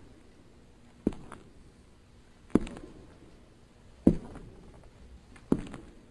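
Slow, heavy footsteps on a hard floor: four steps about a second and a half apart, each a sharp thud with a short echo.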